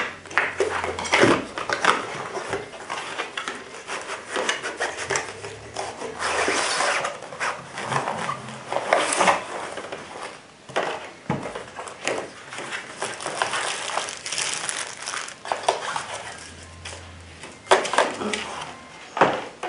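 Cardboard packaging being handled: a box flap opened and a printed outer sleeve slid off an inner white cardboard box. Irregular scraping and rustling, broken by several sharp knocks of cardboard.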